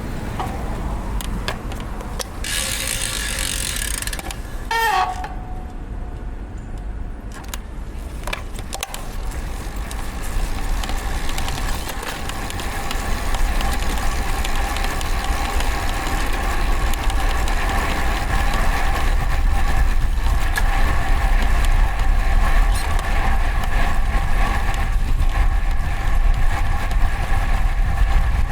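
Road traffic heard from a road bike's onboard microphone, with a tone that sweeps down about 5 seconds in. Over the second half a steady hum of several pitches grows louder.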